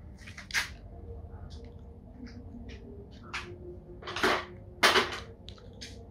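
Dry-erase marker on a whiteboard: a run of short scratchy strokes and clicks, the two loudest about four and five seconds in.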